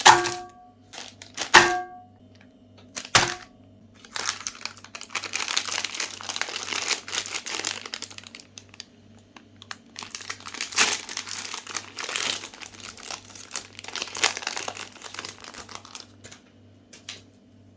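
Ice cream bar wrappers crinkling and tearing as they are unwrapped, in two long spells, after three sharp ringing knocks about a second and a half apart. A faint low hum pulses about twice a second underneath.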